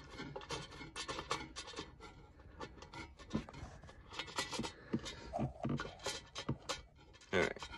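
Irregular small clicks, scrapes and rubs of fingers threading steel bolts with washers into a metal console safe by hand, with a louder bump near the end.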